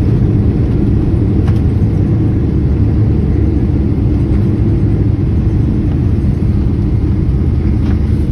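Steady low cabin rumble of a Boeing 777-300ER rolling on the ground after landing, heard from inside at a window seat, with a faint tick about a second and a half in.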